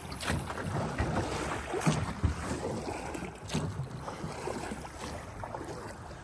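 Drift boat being rowed on a river: rushing water and wind on the microphone, with a few sharp knocks.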